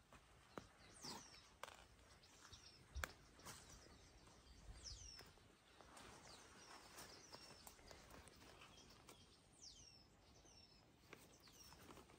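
Faint outdoor ambience with a bird calling a few times, each call a short high note sweeping down in pitch. Scattered small clicks and snaps, with one sharper knock about three seconds in.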